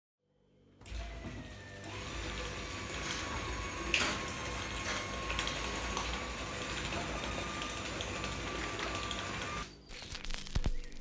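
A machine running steadily, starting about a second in and stopping abruptly near the end, followed by a few clicks.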